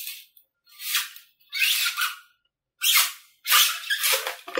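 Craft knife slicing through the foam of a model aircraft's airframe in a series of short, squeaky rasping strokes, each under a second, with brief pauses between them.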